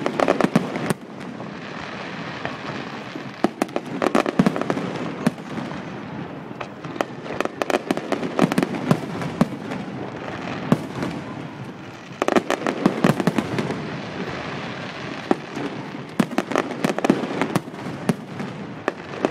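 Fireworks display: volleys of sharp bangs and rapid crackling, coming in several bursts with short lulls between, over a steady hiss.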